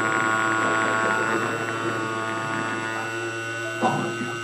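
Homemade MPCNC router cutting 2 mm craft foam, its Emax 2822 brushless motor spinning the cutter at about 6000 rpm while the stepper motors feed the head. The machine gives a steady electric hum made up of several steady tones.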